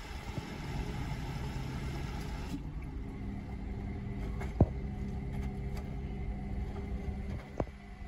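Hotpoint front-loading washing machine running a wash, its drum turning with a steady low motor hum and rumble. Two sharp knocks, about halfway through and near the end, as the wet load tumbles in the drum.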